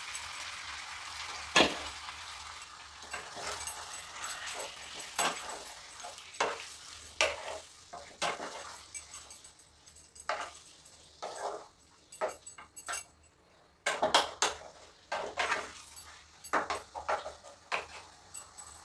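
Marinated chicken frying in a nonstick pan of hot oil, with a steady sizzle at first, then irregular scrapes and knocks of a spatula against the pan as the chicken is stirred.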